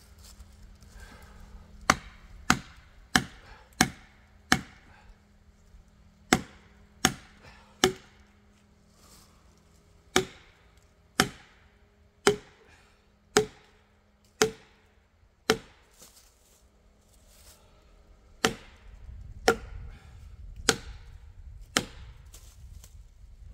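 A felling wedge being driven into the cut of a tree that has settled back, struck again and again with a hammer or axe: about eighteen sharp blows in four bunches, each with a short ring, the middle bunch at about one blow a second.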